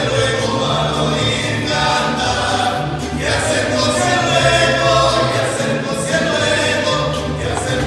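Mariachi band playing and singing in a church: several men's voices singing together over violin and guitars, with a deep plucked bass line from a guitarrón.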